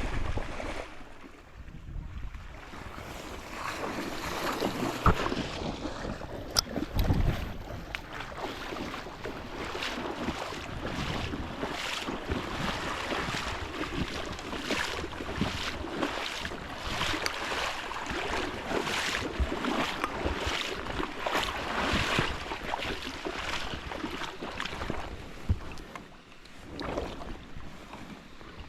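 Rushing, high creek water, with wind gusts buffeting the microphone.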